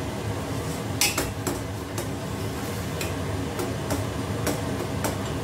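A ladle clinking and knocking against a stainless steel saucepan while broth is stirred and scooped: a string of sharp clinks, the loudest about a second in, over a steady low hum.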